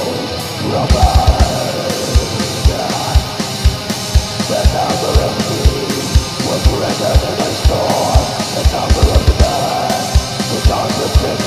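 Black metal: distorted electric guitars over a drum kit, the kick drum striking about twice a second with quick double-kick runs about a second in and again near the end.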